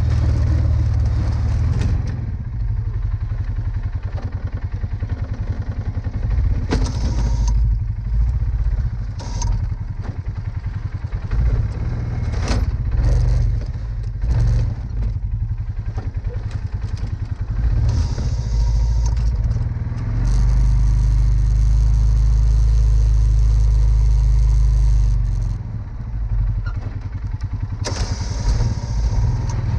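Polaris Sportsman 570 ATV's single-cylinder engine running and revving as the steel plow blade pushes snow, with sharp knocks and scrapes from the blade. A steady harder pull lasts about five seconds past the middle.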